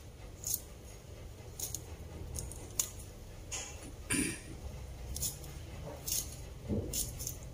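Kitchen knife cutting through a crisp green vegetable, some cuts made against the thumb and some down onto a wooden chopping board: a string of short, sharp crunchy clicks at irregular spacing, about one or two a second.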